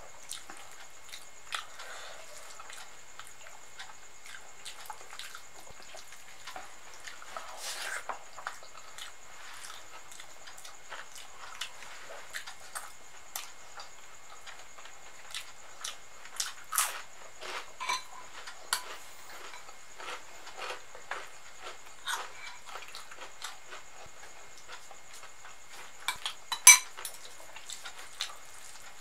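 Eating by hand: fingers squishing and mixing khichdi and dum aloo on a plate, with wet mouth clicks and smacks of chewing. Many small sharp clicks, a few louder ones in the middle and the loudest near the end.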